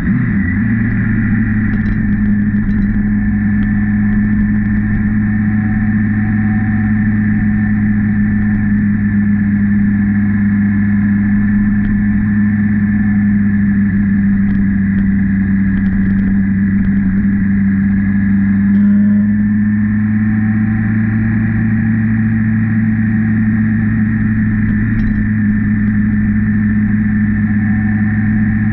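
Honda CB650R's inline-four engine running steadily as the motorcycle is ridden along at an even pace, with a brief change in pitch about two-thirds of the way in.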